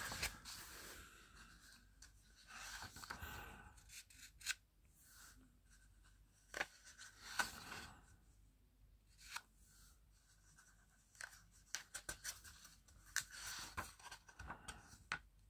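Pages of a thick softcover book being turned by hand: faint paper rustles and small flicks and ticks as leaves are lifted and let fall, in irregular bunches.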